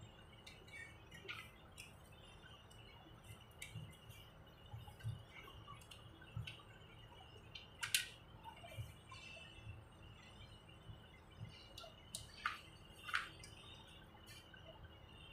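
Scattered faint clicks and small knocks of wire connectors and wiring being handled and pushed back onto terminals inside an electronic inverter welding machine, the loudest click about eight seconds in.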